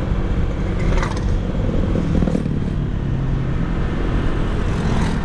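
Motorcycle engine running steadily while riding along, with wind noise over the microphone.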